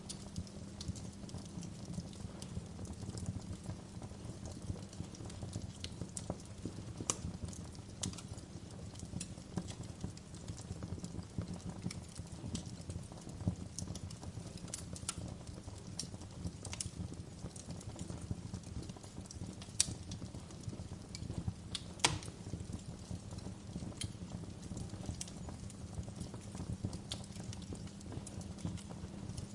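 Wood fire crackling in a fireplace: irregular sharp pops and snaps over a steady low rumble of burning, with two louder snaps a couple of seconds apart about two-thirds of the way in.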